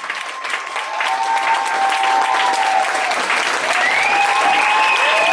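Audience applauding, with long held whoops from several voices over the clapping.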